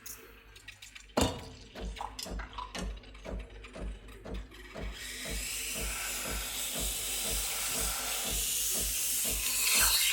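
Background music with a steady beat of about two thumps a second, starting about a second in. From about halfway a steady hiss rises beneath it.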